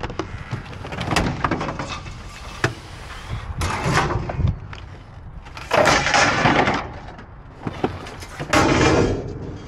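White metal store shelving pieces clattering and scraping against each other as they are pulled out of a dumpster and handled. The sound comes in several separate rattling bursts, with a few sharp knocks between them.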